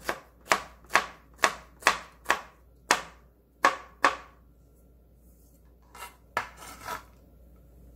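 Chef's knife chopping chili peppers on a plastic cutting board: about nine sharp chops, roughly two a second, stopping about four seconds in. A few softer knocks follow near the end.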